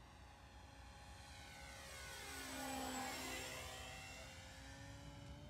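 Brushless electric motor and propeller of a 3D-printed RC Cessna 152 model plane flying a low pass. The sound swells to its loudest about three seconds in, then fades as the plane goes by.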